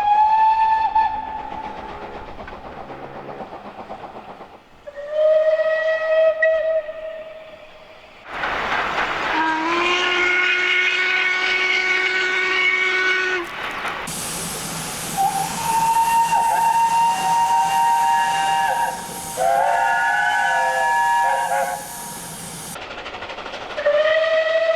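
British steam locomotive whistles from different engines, one after another, about six in all, each at its own pitch and lasting a second or a few seconds. The middle ones sound over a steady hiss of escaping steam, and one near the end is a chime whistle sounding several notes together.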